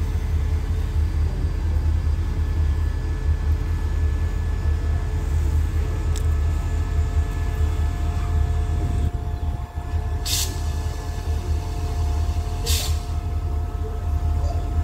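A diesel train locomotive runs with a steady low rumble while standing at the platform. Twice, about ten and then about twelve seconds in, there is a short hiss of air from the brake system.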